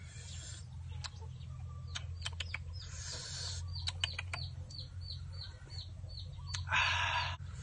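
Eating roasted snails: short slurps and sucks as the meat is drawn out, with sharp clicks of shells and the picking stick, the loudest slurp near the end. A bird chirps a quick run of short falling notes in the middle, over a steady low hum.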